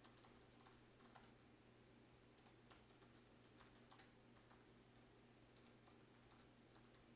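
Faint, irregular clicking of keys on a computer keyboard over a low, steady room hum.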